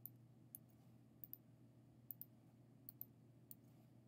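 Faint, scattered clicks of a computer mouse and keyboard, several coming in quick pairs, over a low steady hum.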